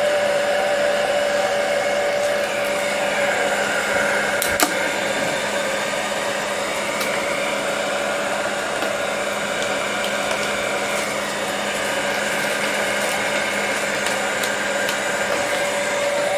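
Heat gun blowing steadily with an even hum, its air softening the old iron-on covering so it can be peeled off the model's balsa frame. One sharp click about four and a half seconds in.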